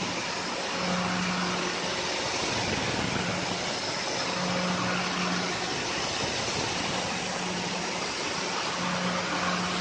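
CNC 6040 router milling a round hole in aluminium plate with a small end mill: a steady hissing machine noise, with a low hum that comes and goes every second or two as the machine works.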